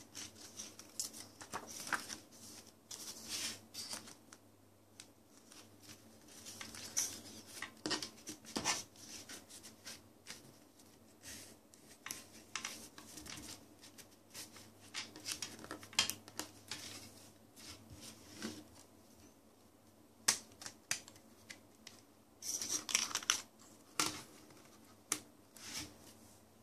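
Paper CD booklet and inserts being handled and rustling, with sharp clicks and taps now and then from the plastic CD jewel case.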